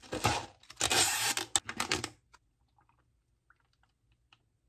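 Plastic packaging on an iced convenience-store drink being torn open and crinkled for about two seconds, with a few sharp cracks. After that it goes near quiet, with only a few faint small ticks.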